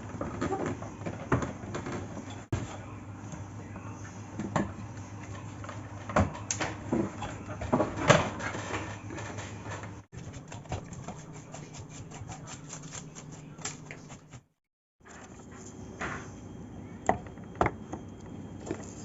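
Scattered knocks, taps and clicks of a plastic electronic keyboard case being turned over and worked on to open it, with a quick run of rapid clicks a little past the middle. The sound drops out completely for a moment about three quarters of the way through.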